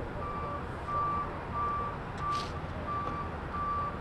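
A heavy vehicle's reversing alarm beeping evenly, about three beeps every two seconds, over a low engine rumble, with a short hiss a little past halfway.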